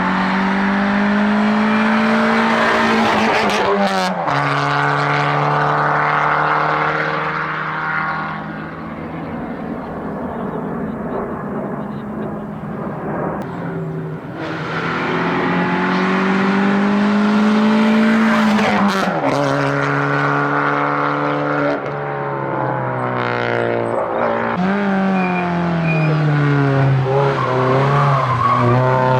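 Rally-prepared cars at full throttle on a hillclimb, engines revving hard and dropping in pitch at each upshift as they climb past. A Citroën Xsara VTS runs first, and a Peugeot 206 RC takes over near the end.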